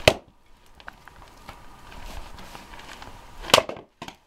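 Axe splitting firewood on a chopping block: two loud sharp cracks of the blade striking the log, about three and a half seconds apart, with a couple of lighter wooden knocks near the end.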